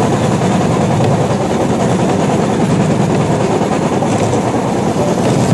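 Battambang bamboo train (norry) running along the rails at speed: a steady, loud din of its small engine and wheels on the track, with wind rushing past.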